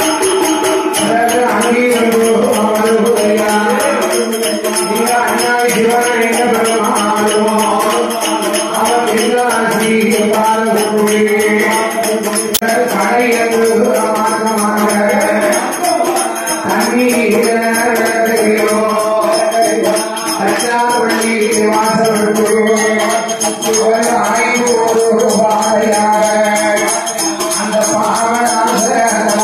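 Villupattu music: the jingling bells and steady rhythmic beating of the villu, the bow instrument, with singing over it.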